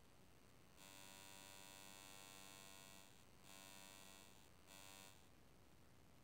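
Faint electrical buzz with many overtones, sounding three times: a long stretch of about two seconds, then two shorter ones, each starting and stopping abruptly.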